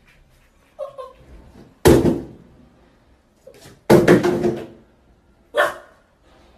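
A puppy jumping up against the side of a bathtub, its paws and body knocking against the tub's side panel. There are three loud knocks about two seconds apart, the middle one a quick cluster of knocks.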